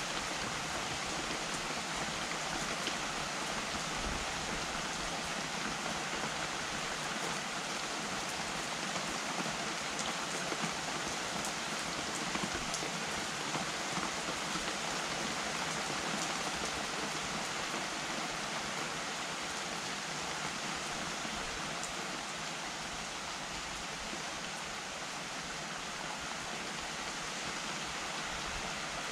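Steady rain falling: an even hiss of rainfall, with a few sharper drop ticks standing out now and then.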